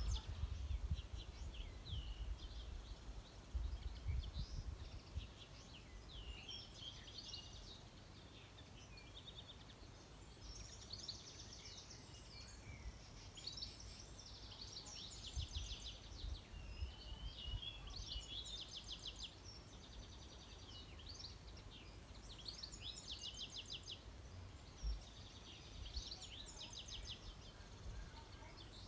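Songbirds singing: repeated short phrases with fast trills, over a steady low background rumble.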